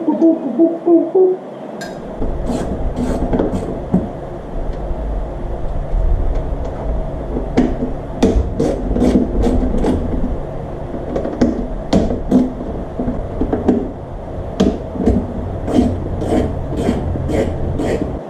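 Hand-working noises of disassembly: irregular sharp clicks and knocks of tools and small hardware, with rubbing, over a low rumble that starts about two seconds in and stops abruptly just before the end.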